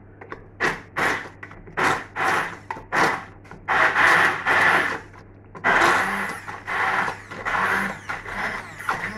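Electric blender run in repeated short pulses, puréeing cooked chickpeas and onion with stock into a sauce. Each burst of motor whirr lasts well under a second, with a longer run of about a second around four seconds in.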